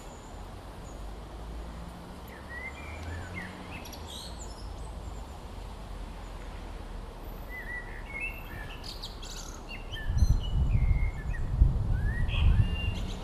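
Birds chirping over steady outdoor background noise. About ten seconds in, a loud, uneven low rumble swells up and stays.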